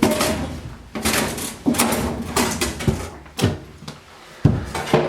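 A series of knocks and scrapes, as of hard objects being handled and shifted, with sharp knocks about two, three, three and a half and four and a half seconds in.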